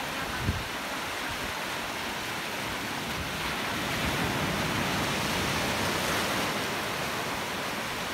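Surf washing onto a beach, a steady rush of breaking waves that swells louder midway as a wave comes in. A brief low thump about half a second in.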